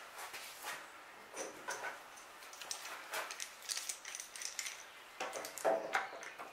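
Steel clamps clinking and rattling as they are handled on glued timber mast staves: a string of short metallic clicks with a light ring, busiest near the end.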